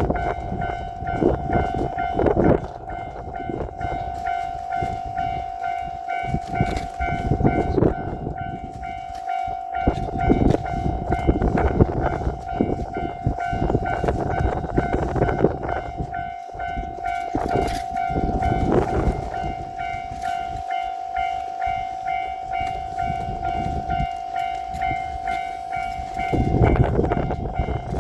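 Japanese level-crossing alarm ringing as one steady, unbroken tone while a JR Shikoku 8000 series electric train runs past with a rumble and many sharp clacks from its wheels, loudest near the end.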